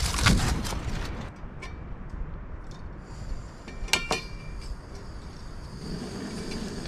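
Aluminium foil crinkling as a windscreen is fitted around a canister gas stove. About four seconds in comes one sharp metal clink with a short ring as a small stainless steel pan is set on the stove's pot supports. A faint steady hiss runs under it.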